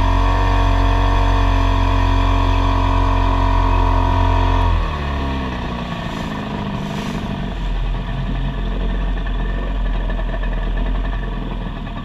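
Boat's outboard motor running steadily at speed, then throttled back about five seconds in, its pitch falling as it settles into a quieter, rougher run.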